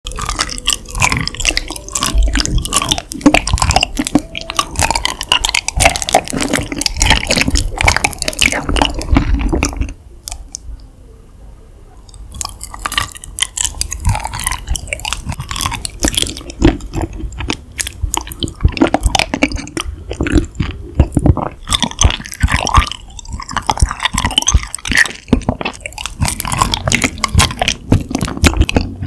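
Close-miked biting and chewing of raw honeycomb: a dense run of crackles and crunches, dropping to a brief quiet spell about ten seconds in.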